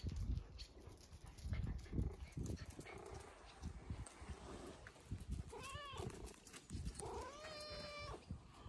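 Tabby-and-white cat meowing twice: a short call with a falling pitch about six seconds in, then a longer, steadier meow near the end. Low thuds of footsteps in rubber boots on concrete come and go throughout.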